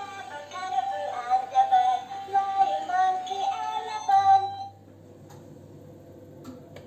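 VTech musical activity ball playing its electronic song with a recorded singing voice. The tune stops suddenly about two-thirds of the way through, leaving only a faint low hum.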